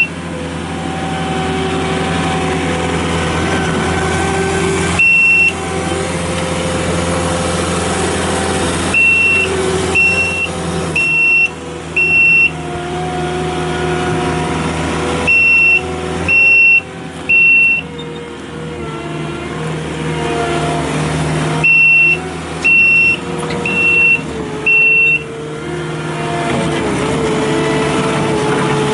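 Kubota SSV65 skid steer loader's four-cylinder diesel engine running, its pitch shifting as the machine is driven. Runs of short, loud backup-alarm beeps, about one a second, sound while it reverses.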